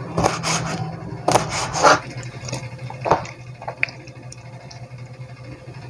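Large kitchen knife slicing squid on a plastic cutting board: a few short scraping strokes in the first two seconds and one more near three seconds, over a steady low hum.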